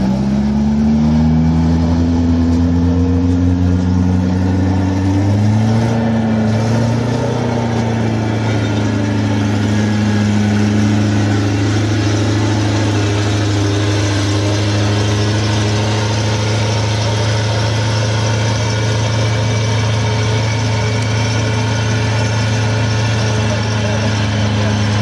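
Alvis Saladin armoured car's Rolls-Royce B80 straight-eight petrol engine driving off. Its note rises over the first few seconds and changes pitch about five seconds in, then runs steadily as the six-wheeler drives past and away.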